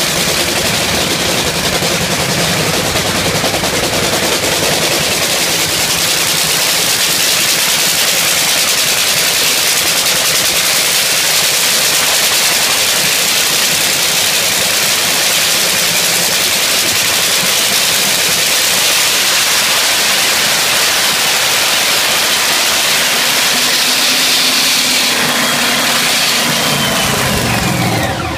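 Top fuel dragster's supercharged nitromethane-burning Hemi V8 running during a pit warm-up: a loud, steady, crackling racket. Near the end a falling tone is heard and the sound drops away as the engine is shut off.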